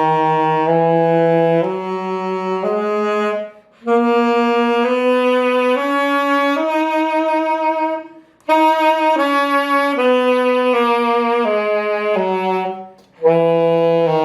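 Saxophone playing a Phrygian mode scale, mi to mi, note by note: up the scale and back down in phrases broken by short breaths, starting up again near the end.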